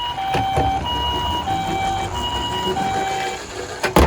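Toy ambulance's electronic hi-lo siren, alternating between a high and a low note about every half second, like a Japanese ambulance's two-tone siren, over a low rumble. A sharp clatter near the end is the loudest sound.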